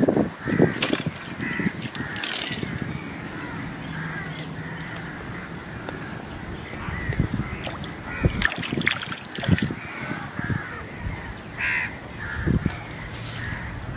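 Crows cawing over and over in the background. Occasional sharp knocks and splashes come from close by.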